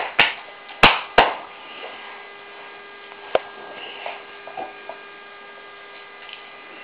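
A dog gnawing a large chew bone: a few sharp knocks of teeth on the bone in the first second or so and one more about three seconds in. A steady electrical hum with thin high whine tones runs underneath.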